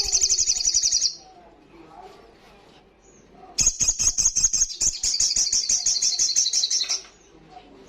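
Sogon sunbird singing in full song: a fast, high, buzzy trill of rapidly repeated notes. One burst ends about a second in, and a second long burst runs from about three and a half seconds to seven seconds.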